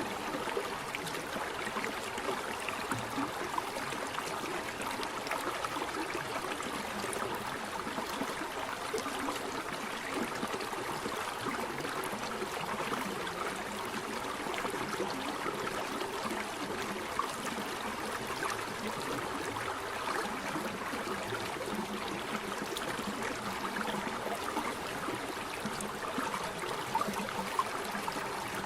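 Waterfall water pouring and running steadily.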